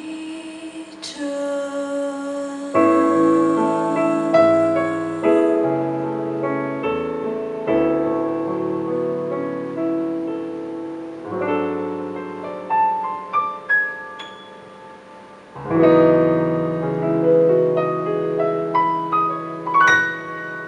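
Piano from a song's backing track playing a slow instrumental passage of sustained chords with a melody over them. It dips briefly about three-quarters of the way through, then comes back in louder.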